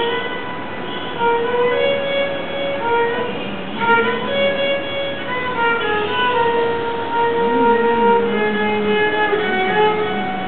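A violin played solo by a young player, bowing a melody of held notes that move step by step from one pitch to the next.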